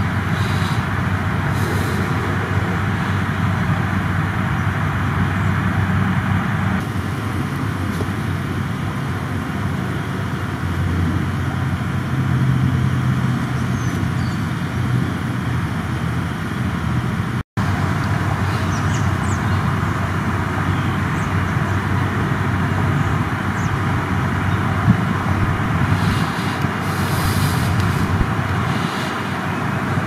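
Steady rumble of road traffic, with a brief break a little past halfway.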